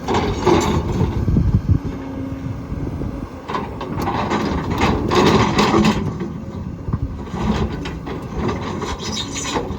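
Volvo EC220E hydraulic excavator at work: its diesel engine running under hydraulic load while the bucket and thumb handle a large piece of concrete, with scraping and clunking of concrete and rock. The clatter is loudest about half a second in, in the middle, and again near the end.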